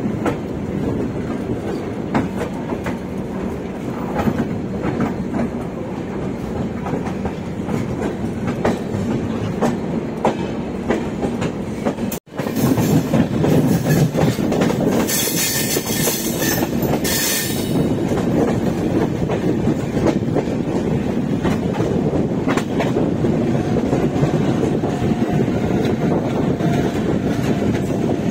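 Swarna Shatabdi Express running along the track: a steady rumble with wheels clicking over rail joints. The sound cuts out for an instant about twelve seconds in and comes back a little louder, with a hiss for a few seconds soon after.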